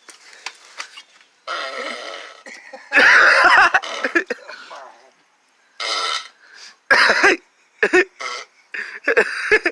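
A series of played-back fart and burp sound effects: about six short bursts, the longest and loudest about three seconds in.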